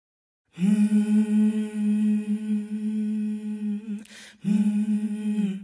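A single voice humming one long, steady note without accompaniment, then a short breath and a second held note on the same pitch.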